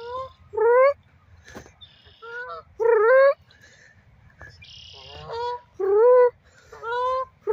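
Canada goose honking repeatedly, about seven short honks a second or so apart, each sliding up in pitch.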